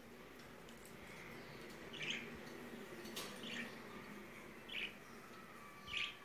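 A small bird chirping faintly in short single calls, four in a few seconds, with one sharp click midway and a faint steady hum beneath.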